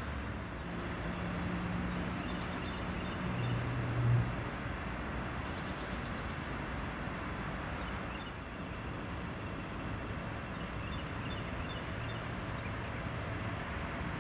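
CSX freight train rolling past with a steady rumble of wheel and rail noise. A low hum swells briefly about four seconds in, and a thin high whine joins in about two-thirds of the way through.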